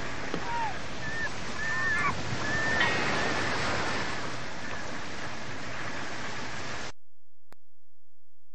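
Steady rushing outdoor noise with a few short, high chirping calls in the first three seconds; the sound cuts out suddenly about seven seconds in.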